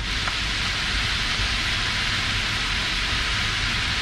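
Bopis sizzling in a large pan on the stove, a steady hiss.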